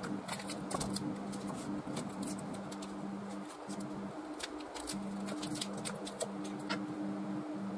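Screwdriver prying and scraping the rough bark off a mulberry log, the bark cracking away in irregular sharp crackles and clicks.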